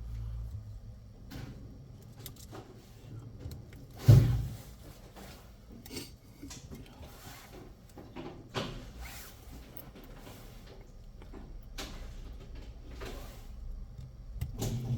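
Scattered knocks and clicks of objects being handled and set down on a workbench, with one loud thump about four seconds in.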